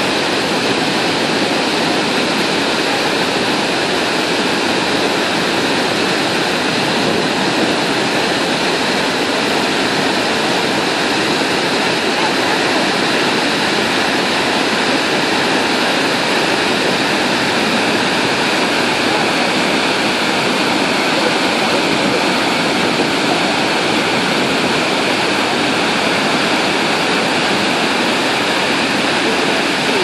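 Iguazu Falls: a steady, loud rush of many large waterfalls plunging into a river gorge.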